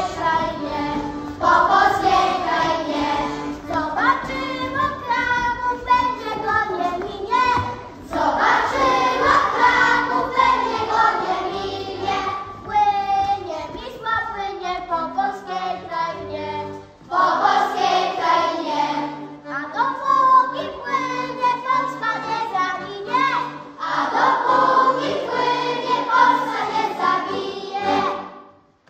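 A group of children singing a song together with instrumental accompaniment under the voices. The song stops just before the end.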